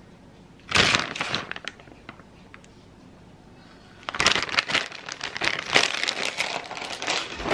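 Plastic packaging crinkling and rustling as it is handled: a short burst about a second in, then dense, continuous crinkling from about four seconds on.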